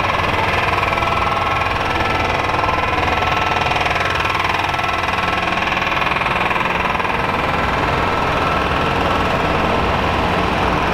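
Large semi truck's diesel engine idling steadily close by, a continuous even low pulse.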